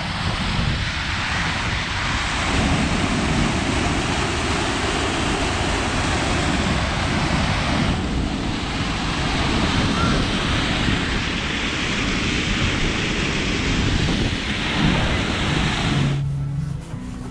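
Waterfall rushing into its plunge pool: a steady, dense roar of falling water, with wind buffeting the microphone. It cuts off abruptly near the end, leaving a much quieter low, steady tone.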